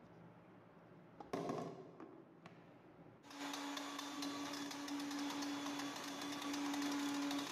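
A brief knock and clatter about a second and a half in, then the mixer grinder's motor starts and runs with a steady hum while a hollow plastic toy ball spins and rattles rapidly against the inside of the plastic jar.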